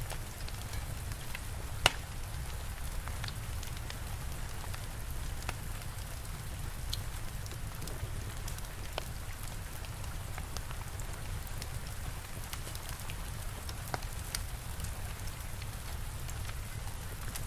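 Steady rain with a low rumble, mixed with a wood fire crackling in scattered sharp pops; the loudest pop comes about two seconds in.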